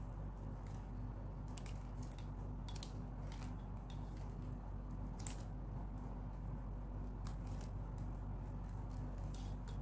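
Stiff plastic craft wire being pulled and knotted by hand: scattered faint clicks and rustles as the strands rub and snap against each other, over a steady low hum.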